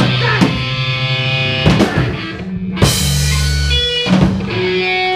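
Live rock band closing out a song: electric guitars ring out on held chords, broken by a few loud hits on the drum kit and cymbals.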